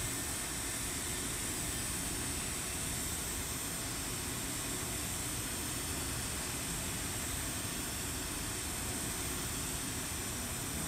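TIG welding arc running steadily on a carbon steel pipe during a fill pass, an even hiss.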